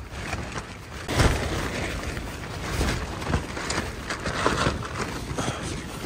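Strong wind gusts buffeting a tent, the fabric flapping and crackling, with a surge about a second in.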